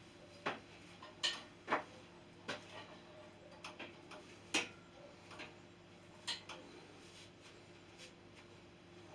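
Sharp, unevenly spaced clicks and creaks from a triceps bar worked as a wrist roller, its chain hauling a stack of iron weight plates of about 600 kg; a brief squeak about halfway through. A steady low hum runs underneath.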